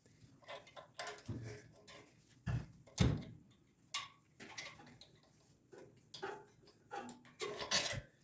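Irregular clicks and knocks of hand tools and small metal parts being handled while a generator's carburetor is taken apart, with two heavier knocks about two and a half and three seconds in.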